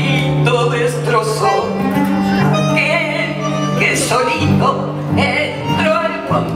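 A woman singing a Spanish-language tango live into a microphone, with long held notes over guitar accompaniment.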